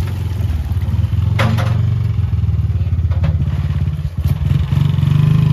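Small motorbike engine idling with a steady, rapid low putter that grows a little louder near the end, with a few short knocks and clatters.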